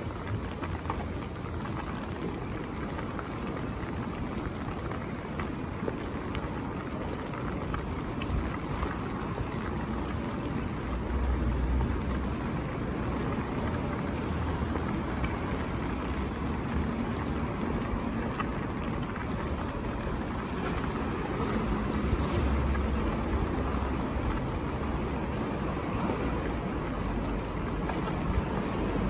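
Steady rain pattering on an umbrella held overhead, a dense hiss of fine drop ticks. A low rumble swells up twice beneath it.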